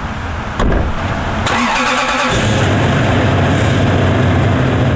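A car door shuts with a thump about half a second in. A second later the first-generation Toyota Sequoia's 4.7-litre V8 cranks and catches, then settles into a steady idle.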